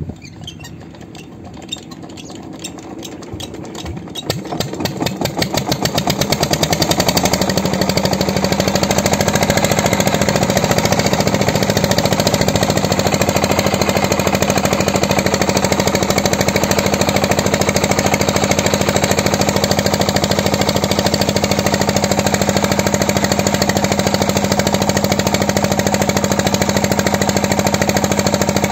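Old single-cylinder Petter stationary engine starting: slow separate firing beats that speed up and grow louder over the first several seconds, then running steadily with a fast, even beat.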